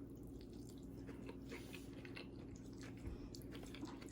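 Faint chewing of food with soft, scattered mouth clicks.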